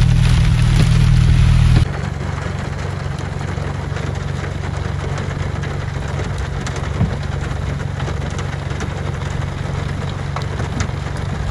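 Heavy rainstorm: steady hiss of downpour with a deep rumble of gusting wind. The level drops suddenly about two seconds in, then holds steady.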